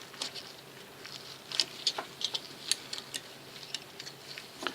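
Irregular light clicks and taps of small metal knife parts and tools being handled while a flipper folder knife is taken apart.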